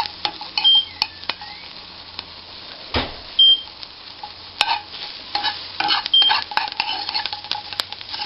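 Chopped peppers sizzling in a frying pan that the cook thinks is too hot, while a utensil stirs them, scraping and clinking against the pan. There is one louder knock about three seconds in.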